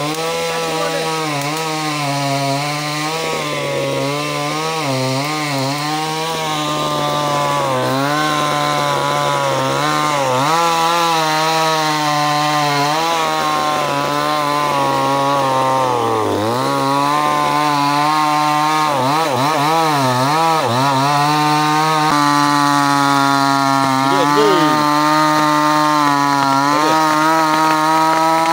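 Chainsaw running hard while cutting through a standing tree, its engine pitch wavering and dipping again and again as the chain bites into the wood, with a deeper dip about halfway through.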